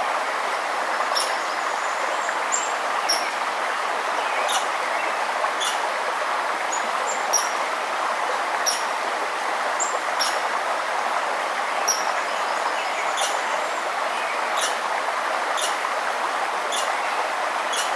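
A stream or river running steadily, with a bird giving short, high chirps over it, about one every second.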